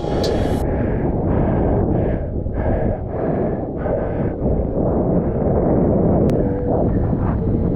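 Wind and water rushing over a GoPro's microphone while kite foiling, a loud, steady low rumble. Through the first half it carries short rushes about twice a second.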